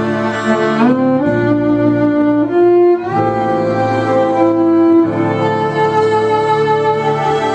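Violin (fiddle) playing a slow Celtic-style melody of long held notes with sliding rises between them, over low sustained string and bass accompaniment.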